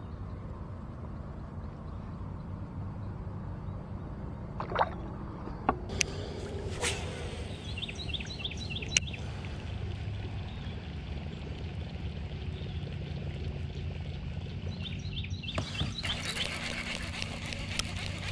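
Water trickling and lapping against a plastic kayak's side as a bass is let go over the edge, with a few sharp clicks and knocks of handling and fishing gear in the middle.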